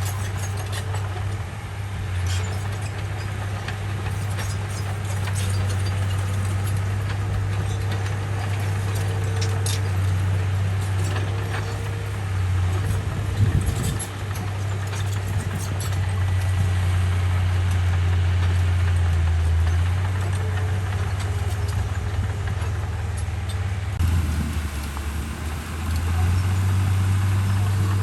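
Komatsu bulldozer's diesel engine running with a steady low drone, with scattered clanks and clicks over it, most of them in the first half.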